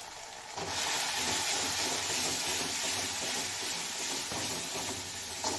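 Ground masala and spice powders frying in hot oil in a kadai: a steady sizzle that jumps up sharply about half a second in, while a spatula stirs the pan.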